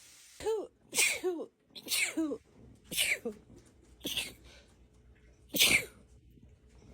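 A person in a sneezing fit: about six sneezes in quick succession, roughly a second apart, each with a short voiced 'ah' before the burst, the last one the loudest.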